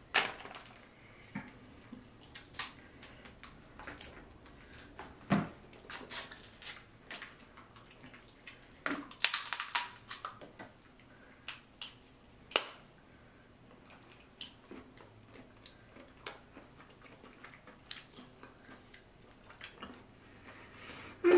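Close-up eating of a seafood boil: scattered clicks, snaps and cracks of shellfish shells being handled and pried apart by hand, with a denser run of crackling about nine seconds in.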